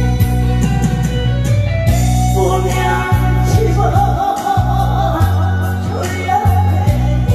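A singer performing over amplified backing music with a steady, heavy bass line; the voice comes in with a wavering, vibrato-laden line about two and a half seconds in.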